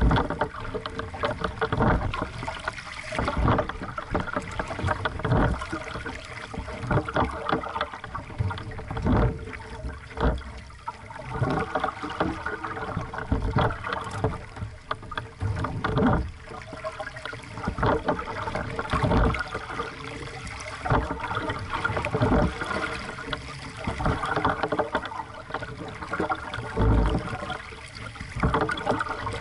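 Water splashing and slapping against the hull of a small aqu@muse sailing dinghy under way, with irregular thumps as small waves hit the hull.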